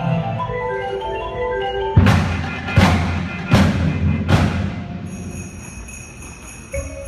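Indoor drumline playing: marimbas and other mallet percussion play a melodic passage, then the ensemble strikes four loud accented hits about three-quarters of a second apart, each ringing on. A quieter sustained high ringing follows.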